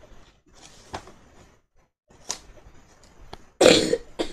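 A single loud cough about three and a half seconds in. Around it, a few light clicks of plastic building bricks being handled.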